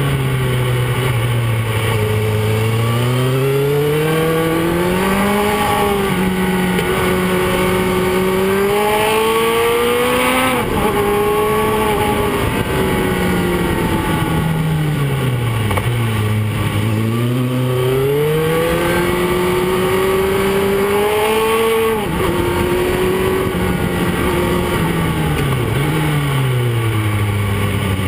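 Onboard sound of a motorcycle engine, its note rising under acceleration and falling as it slows for bends. Twice the pitch drops suddenly at a gear change, about a third of the way in and again later.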